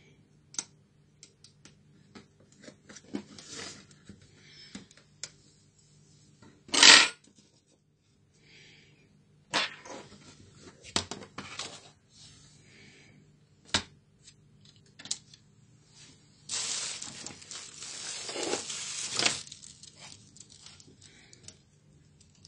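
Plastic laptop parts being handled on a wooden desk: scattered light clicks and taps, a single loud clack about seven seconds in, and a longer scraping rustle of about three seconds near the end.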